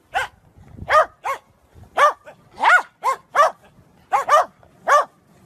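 A corgi barks about ten times in short, high barks, each rising and falling in pitch, spaced unevenly.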